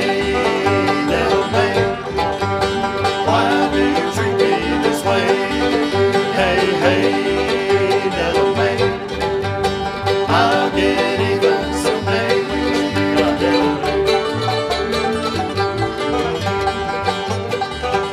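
Acoustic bluegrass band playing an instrumental break, with banjo, fiddle, guitar, mandolin and upright bass together and no singing.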